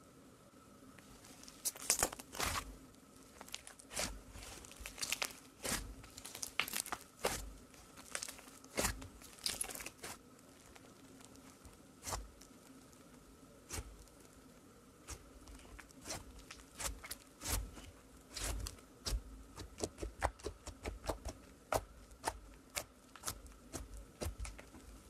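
Fingers pressing and poking into thick slime, giving irregular sticky pops and crackles that come thicker and faster near the end.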